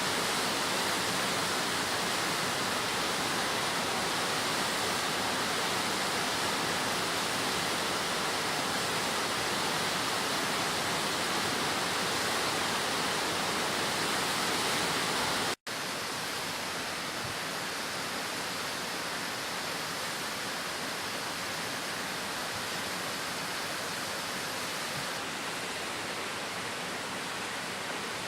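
Steady rushing of falling water at the Hakusen waterfall. The sound breaks off for an instant just past halfway, then goes on slightly quieter.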